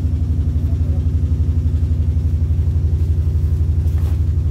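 A train's diesel engine idling while the train stands at the platform, heard inside the passenger coach as a steady low rumble with an even, fast throb.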